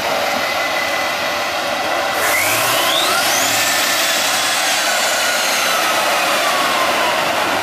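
8x8 Tatra 813 truck's engine running hard under load as it crawls through mud, a loud steady noise. About two seconds in, a high whine climbs steeply in pitch, then slowly falls away.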